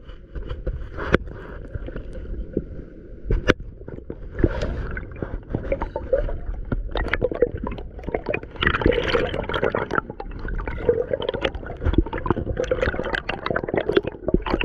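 Water gurgling and splashing around the camera, with many sharp clicks and knocks; it grows busier and louder from about four seconds in.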